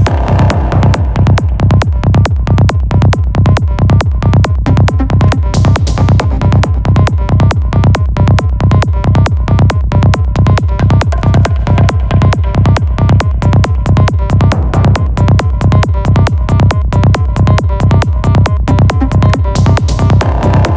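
Electronic progressive trance music: a steady four-on-the-floor kick drum, a little over two beats a second, under sustained synth tones.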